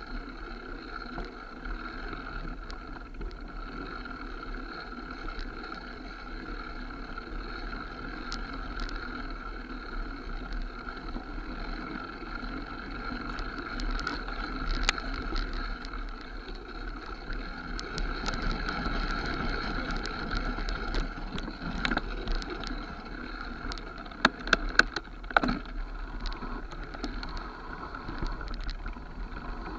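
Mountain bike rolling down a dirt forest singletrack: steady tyre and ride noise with light rattling, and a burst of sharp clatters about three-quarters of the way through.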